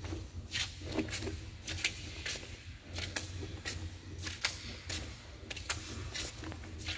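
Footsteps scuffing along the concrete floor of a storm-drain tunnel, about two steps a second.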